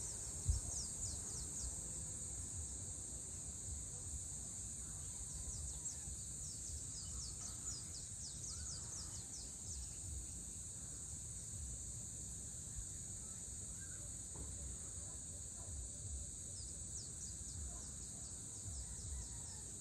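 Evening chorus of insects: a steady high-pitched shrill drone, with runs of quick falling chirps about five to eight seconds in and again near the end, over a low rumble.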